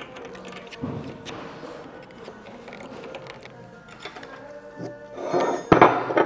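A steel pick scraping and clicking in the bolt holes of a metal bearing cap, clearing out thin shim material. Near the end the heavy caps are handled on the steel bench, with a louder clatter and one sharp metal knock.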